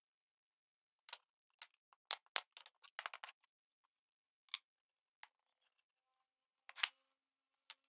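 Scattered light knocks and clacks of plywood parts being handled and fitted together on a workbench: a quick run of taps about two to three seconds in, single clicks after it, and a louder knock near the end.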